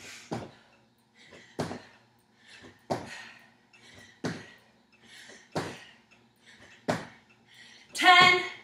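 Sneakers landing on the floor from repeated squat jumps, a thud about every 1.3 seconds, with hard breaths between the jumps. Near the end a short voiced grunt is the loudest sound.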